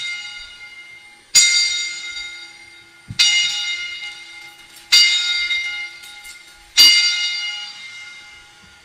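A high-pitched bell struck four times, about every two seconds, each stroke ringing and fading away: a sacristy bell marking the priest's entrance for Mass.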